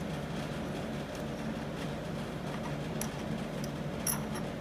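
Light metallic clicks as a small splined chain-drive gear and its washer are worked off a shaft by hand, a couple of times near the end, over a steady low background hum.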